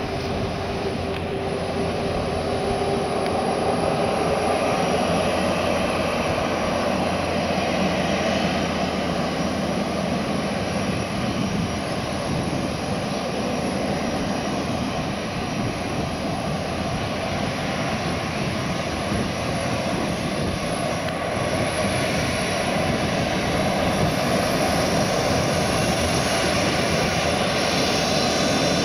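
Boeing 737-300 with CFM56-3 turbofan engines running at ground idle: a steady rushing rumble under a thin high whine. A second whine climbs in pitch over the last several seconds.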